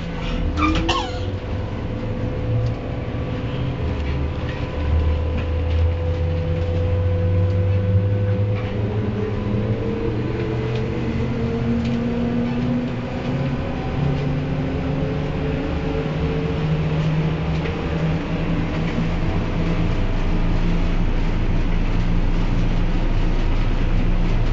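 Trolleybus heard from inside the passenger cabin: a steady low hum and rumble with a faint electric whine that slowly rises and falls in pitch.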